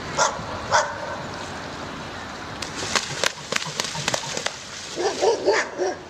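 Dog barking in short yips: two near the start and a cluster near the end, with a run of sharp slaps or splashes in between.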